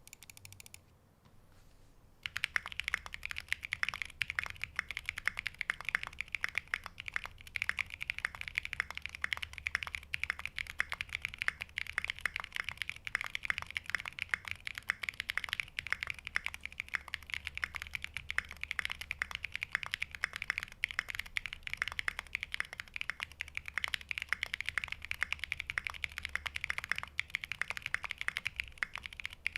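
Continuous fast typing on a custom mechanical keyboard (SingaKBD Unikorn R2.2, full aluminium plate) fitted with Holy Chickies frankenswitches (MX Blue housings with Halo True stems) and SA-profile keycaps: a dense stream of key clacks that starts about two seconds in.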